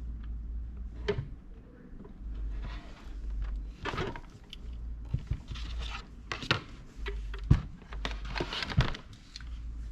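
Handling noises: a scatter of sharp clicks and knocks, with about five louder ones in the second half and some brief rustling, over a low steady hum.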